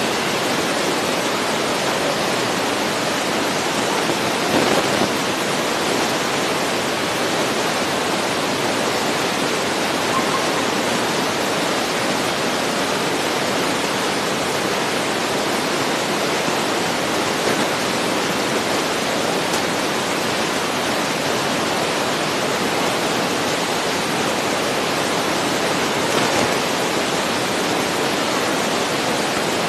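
Steady, even hiss with nothing standing out of it, a slight swell about four and a half seconds in.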